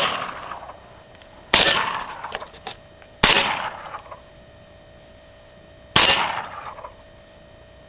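.22 Long Rifle rifle fired three times, the shots about one and a half to three seconds apart, each sharp crack trailing off over about a second.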